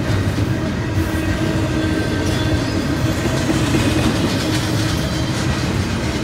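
Double-stack intermodal container cars rolling past at a grade crossing, making a steady noise of steel wheels on rail.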